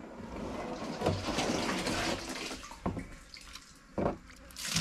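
Liquid pouring and splashing for about three seconds, then a few short knocks.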